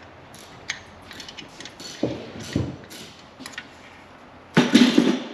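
Metal tools or parts being handled: scattered light clicks, two dull thumps about two seconds in, and a louder clatter lasting under a second near the end.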